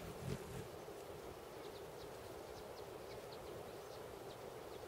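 Faint, short, high bird chips, a dozen or so scattered over about three seconds, over a steady outdoor background hiss.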